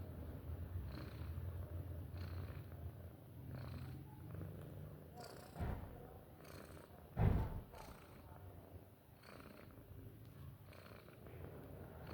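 A cat snoring: a low, rhythmic, purr-like rumble with a soft breath about every second, fading after about five seconds. Two short, louder sounds break in about five and a half and seven seconds in, the second the loudest.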